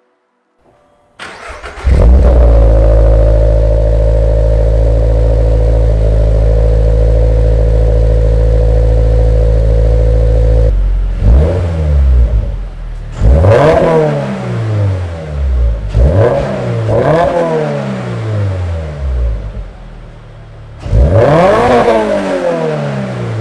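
A Toyota GR86's 2.4-litre FA24 flat-four engine starting up, then idling steadily through its exhaust. After about ten seconds it is revved in a series of quick throttle blips that rise and fall, with a longer rev near the end.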